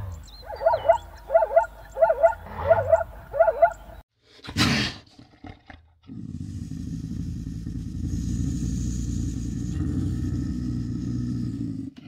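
Zebra calling: a rapid run of about seven barking calls, roughly two a second, over the first four seconds. A short loud sound follows, then a steady low rumbling noise.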